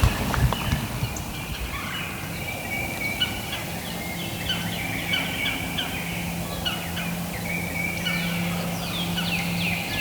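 Wild turkeys gobbling repeatedly, a run of quick falling notes in clusters, with a steady low hum underneath starting a few seconds in.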